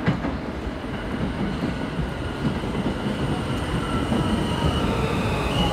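An R179 subway train pulling into the station, its rumble growing louder as it nears. Over the rumble run a high steady squeal and whining tones that slide down in pitch.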